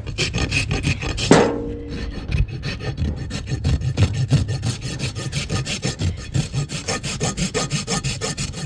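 A farrier's hoof rasp filing a donkey's hoof in quick, even strokes, with a brief louder sound that has a pitch to it about a second and a half in.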